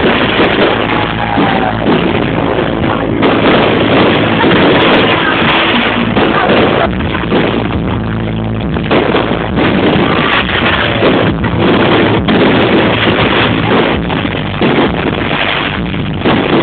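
Loud, distorted music from a sound system, heard over a dense, steady wash of noise.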